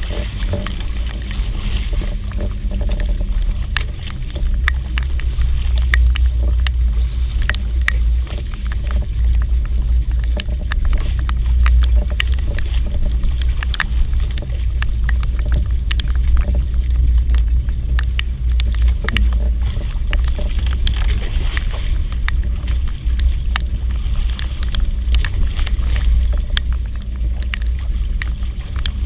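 Boat at sea: a steady low rumble, with many small sharp ticks scattered throughout.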